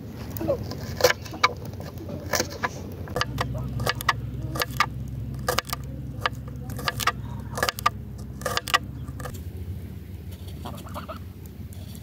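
Kitchen knife chopping onion and garlic on a wooden cutting board: irregular sharp knocks of the blade against the board, which stop about nine seconds in.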